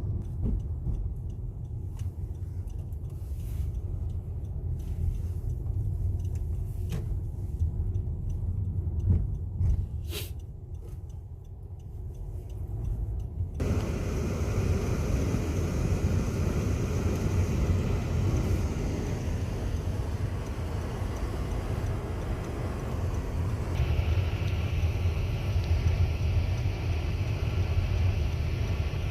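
Steady low rumble of a car being driven. About halfway through, a brighter rushing noise suddenly joins it.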